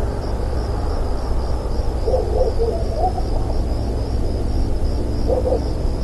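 Night ambience: crickets chirping in a steady pulse over a low rumble, with an owl hooting softly about two seconds in and again near the end.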